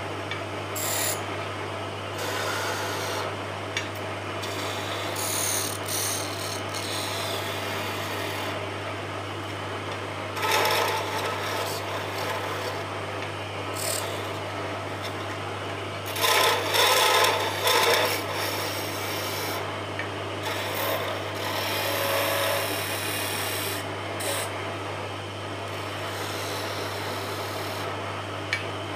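Wood lathe running with a steady low hum while a hand-held chisel cuts rings into the spinning wooden spindle, a continuous scraping of steel on wood. The cutting grows louder about ten seconds in and again for a couple of seconds past the middle.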